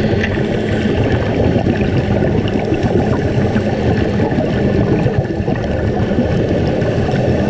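Underwater ambient noise picked up through a camera's waterproof housing: a steady, muffled low rumble with a fine crackle over it.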